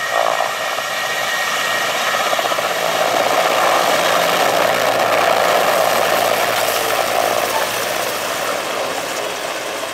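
Mi-17 transport helicopter taking off and flying close past, its turbine engines and main rotor running at takeoff power. The sound swells to its loudest in the middle as the helicopter passes, then eases as it climbs away.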